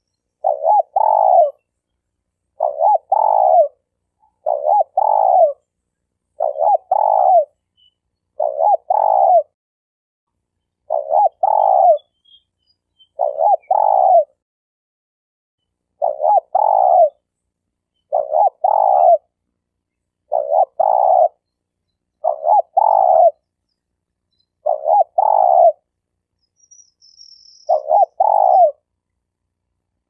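Spotted dove (tekukur) cooing, a decoy (denak) bird's call. A short phrase of two or three quick coos repeats about every two seconds, with silent gaps between phrases.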